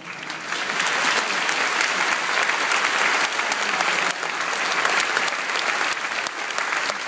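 Large audience applauding, the clapping swelling over the first second and then holding steady.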